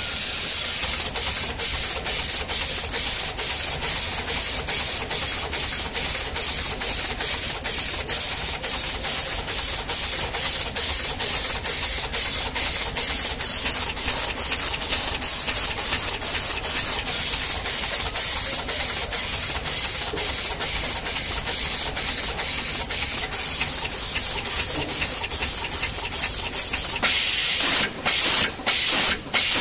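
Eyelet pin auto-insertion machine for circuit boards running: a steady hiss broken by short, regular gaps about twice a second, the gaps growing sparse near the end.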